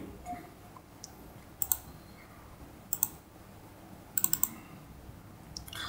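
Computer mouse clicking a few times, in short sharp clicks that come singly or in small quick groups, with a run of several clicks about four seconds in.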